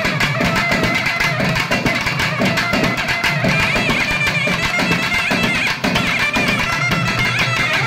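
Loud traditional music: a wavering high melody over dense, fast drumming.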